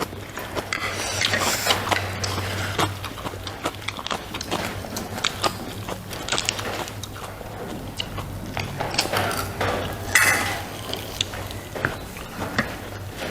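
Close-miked eating: food being chewed and crunched, with many short, sharp crunches and mouth clicks over a steady low hum.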